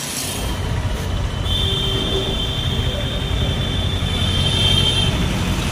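Diesel engines of new Powertrac Euro 50 tractors idling with a steady low rumble. A steady high-pitched tone sounds over it for a few seconds in the middle.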